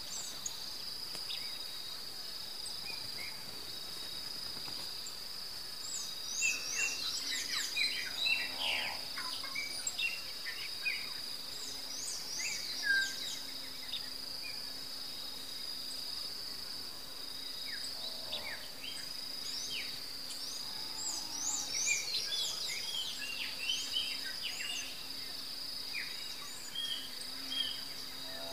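A steady high-pitched insect trill, with small birds chirping in flurries of short calls, the first about six seconds in and the second around twenty-one seconds.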